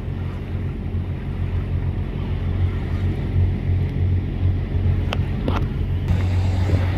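Boat engine running with a steady low drone under wind and water noise, slowly getting louder; two light clicks a little after five seconds in.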